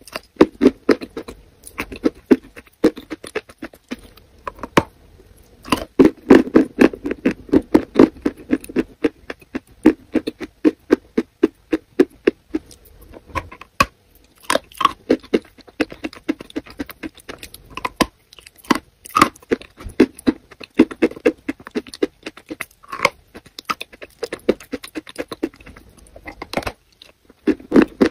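Wet, sticky chewing and biting of a mouthful of soft yellow clay paste: fast runs of short wet clicks and smacks that come in clusters. They are densest about six to nine seconds in, again around twenty seconds, and near the end.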